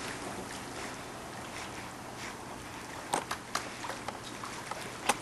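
Pool water lapping and sloshing as poodles paddle across a swimming pool, with a few short sharp ticks about three seconds in and again near the end.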